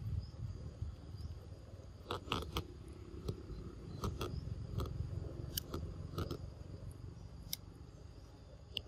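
Irregular small clicks and smacks as a baby macaque sucks milk from a small carton held to its mouth, scattered a few at a time, with a faint steady insect drone behind.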